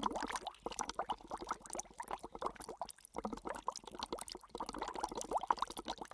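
Water trickling and splashing, a busy patter of small drips and bubbling.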